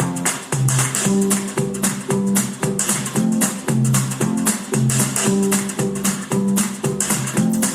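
Acoustic guitar music with steady, rhythmic strumming, played back through a Sony SRS-XB3 portable Bluetooth speaker in a sound test.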